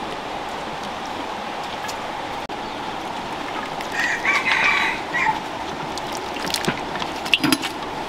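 A rooster crows once, about four seconds in, over a steady background hiss. A few sharp clicks near the end.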